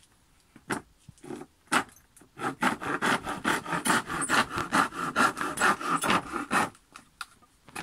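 Hand tool working a wooden plank: a few separate scrapes, then from about two and a half seconds in a fast run of back-and-forth strokes, about five a second, that stops shortly before the end.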